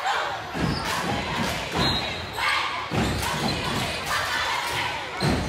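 A ball bouncing on a hard floor in a few irregular thuds, over a crowd of spectators talking and shouting.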